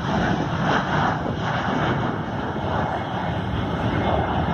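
Allegiant Air Airbus A320-family airliner's jet engines at full power as it climbs away just after takeoff: a loud, steady rushing rumble.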